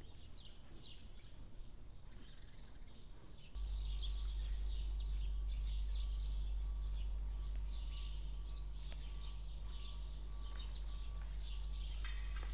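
Small birds chirping over and over. About four seconds in, a steady low rumble sets in beneath them.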